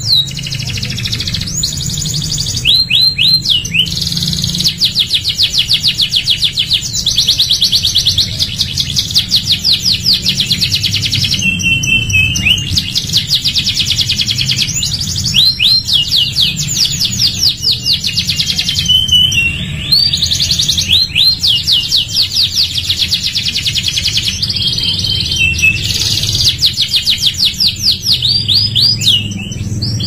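Domestic canary singing a long continuous song of rapid high trills and rolls, switching to a new phrase every one to three seconds.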